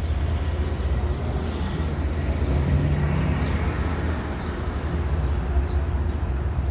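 Steady low outdoor rumble, with faint short high chirps every second or so.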